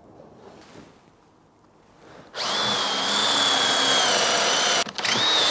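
Cordless drill boring a Forstner bit on an extension into a green conifer log, finishing drilling out its centre. The drill starts about two seconds in and runs steadily with a high whine, stops for a moment near the end, then starts again.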